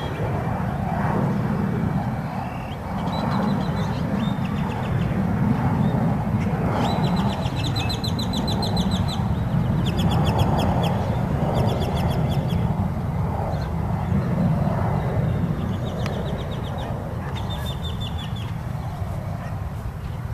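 Wind buffeting the microphone in a steady low rumble, while a bird repeatedly gives short, rapid, high-pitched chattering trills.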